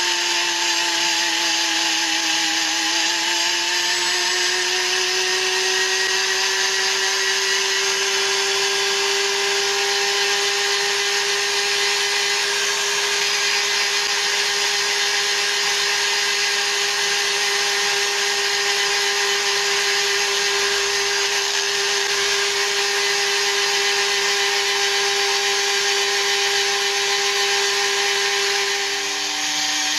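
Small high-speed rotary tool on a flexible shaft running steadily with a high whine. Its pitch sags about two seconds in and steps down just before the end, as the motor slows.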